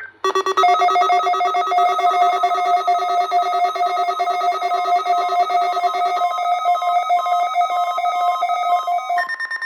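Electronic alert tone: a loud, rapidly pulsing chord of several steady pitches. It shifts to a different set of pitches about six seconds in, and again just before the end.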